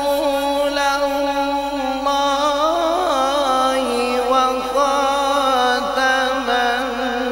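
A man reciting the Quran in melodic tilawat style into a microphone, holding long drawn-out notes with a run of wavering ornamental turns about three seconds in before settling on a lower held note.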